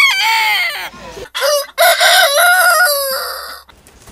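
Rooster crowing twice: the drawn-out, falling end of one crow, then about a second and a half in a second crow of about two seconds that holds its pitch and drops away at the end.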